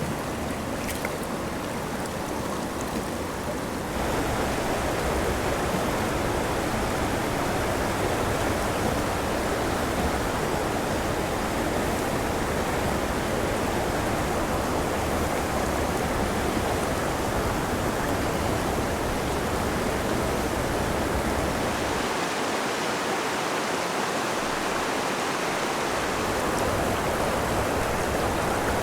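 Steady rush of a mountain stream's flowing water, an even noise with no break. It gets a little louder about four seconds in.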